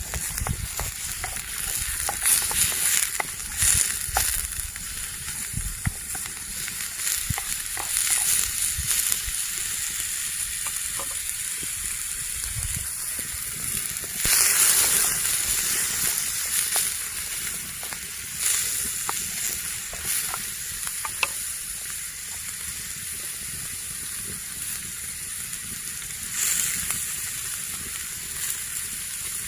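Food frying in hot oil: a steady high sizzle with small crackles, swelling louder about halfway through and again near the end.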